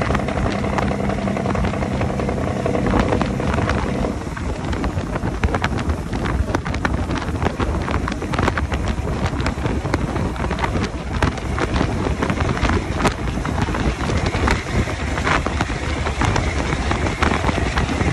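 Semi truck's Cat C15 diesel running through straight pipes as it drives along, heard through heavy wind noise on the microphone. A steady engine tone is clear for the first four seconds, then the sound is mostly wind buffeting and road noise.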